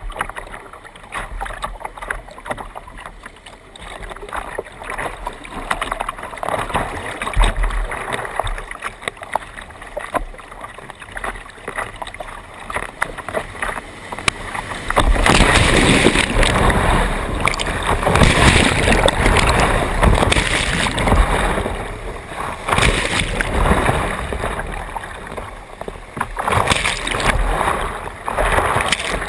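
A kayak moving on calmer water with light, scattered splashing, then about halfway through loud rushing of whitewater rapids around the boat, which swells and dips as the kayak runs the rapid.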